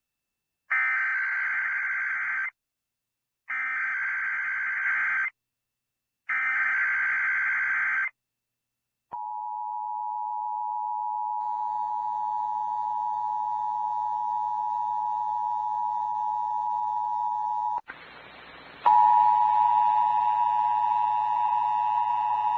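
Emergency Alert System transmission: three identical bursts of warbling digital data tones, each nearly two seconds long with a pause between, followed by the steady two-tone EAS attention signal. Near the end the attention tone breaks into about a second of hiss, then comes back louder with a low buzz under it.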